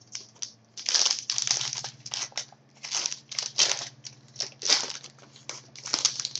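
Plastic-foil wrapper of an Upper Deck SPx hockey card pack crinkling and crackling as it is handled and torn open. It comes as a run of irregular rustles, roughly two a second, with the cards inside shifting.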